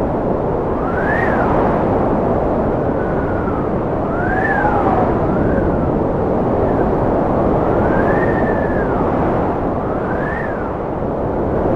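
Cold wind blowing in a steady, dense rush, with thin whistling tones that rise and fall every second or two.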